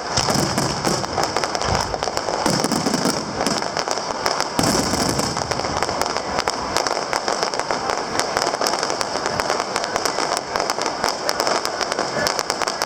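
Aerial fireworks display: shells bursting in a dense, continuous crackle of rapid reports, with deeper booms about two seconds in and again near five seconds in.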